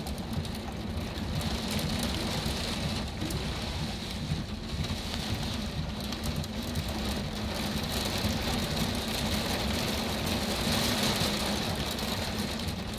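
Heavy storm surf breaking over coastal rocks, a continuous roar of rushing water, with wind buffeting the phone's microphone and rain.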